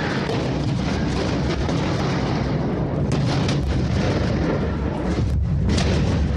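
Gas pipeline explosion heard through a phone microphone: a deep rumbling boom that rolls on for several seconds and swells again near the end.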